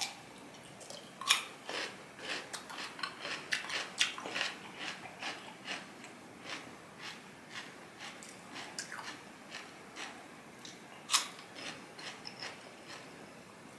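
Crisp crunching as a bite of raw, unpeeled cucumber is chewed: a rapid run of crunches in the first few seconds, thinning out to scattered ones, with one sharper crunch near the end.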